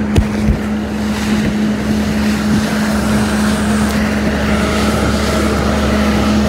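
Jet ski engine running at a steady pitch as it skims across the water, with wind buffeting the phone's microphone and water spray hissing. A couple of sharp thumps come just after the start.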